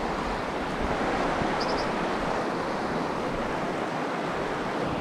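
Mountain river rushing over rocks in a shallow riffle: a steady, even rush of water.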